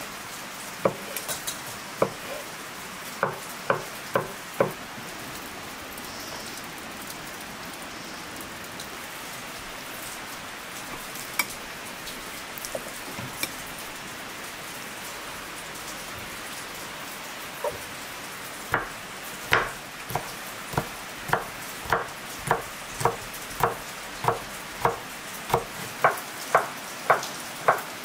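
Kitchen knife cutting on a wooden chopping board: a few separate cuts at the start, then steady, even chopping at a little under two strokes a second over the last third. A few light clinks of a spoon in a ceramic bowl come around the middle, over a steady background hiss.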